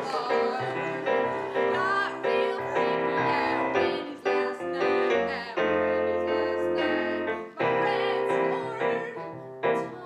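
A woman singing an improvised song, accompanied by piano chords played on a Nord Stage 2 stage keyboard.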